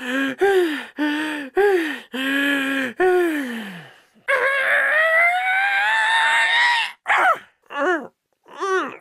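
Cartoon beaver character's voice making a string of about six short grunts and groans, each falling in pitch. About four seconds in comes one long moan that slowly rises, followed by three quick short cries near the end.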